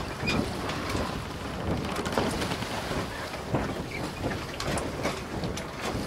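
Wind rumbling on the microphone, with scattered crackles and knocks.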